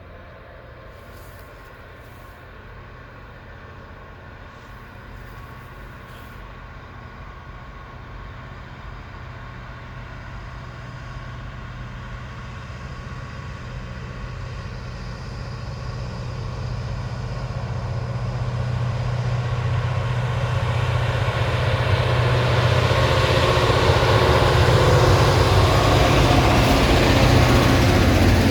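Freight train approaching, its diesel locomotive's engine a steady drone with a low hum that grows slowly louder and is loudest near the end as the train draws close.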